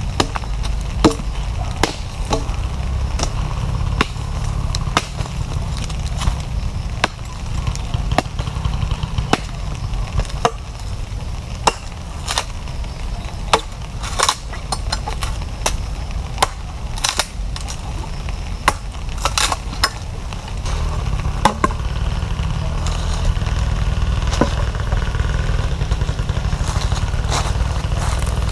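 Irregular sharp knocks and taps from preparing food for cooking, one or two a second, over a steady low rumble.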